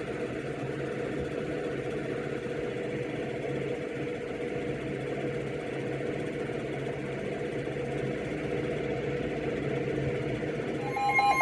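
Steady low hum and hiss of background noise in a small room, unchanging for several seconds. Right at the end, a loud steady electronic alert tone of an Emergency Alert System broadcast starts.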